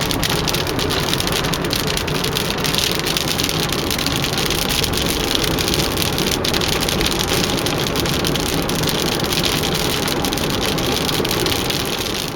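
Heavy rain drumming steadily on a car's roof and windshield, a dense patter of drops heard from inside the car.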